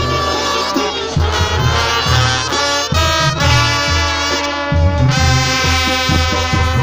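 Mexican banda (brass band) playing live: clarinets and trombones carry sustained melody notes over a pulsing tuba bass line and drums.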